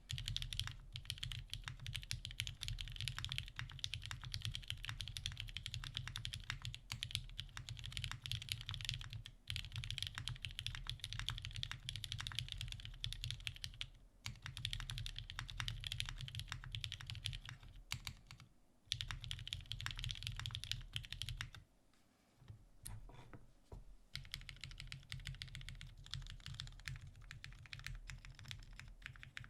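Fast, continuous typing on a TGR Jane V2 custom mechanical keyboard: lubed vintage Cherry MX Black linear switches on a brushed aluminium plate under GMK keycaps. The typing stops briefly a few times, with a lull of about two seconds two-thirds of the way through, where only a few keystrokes sound.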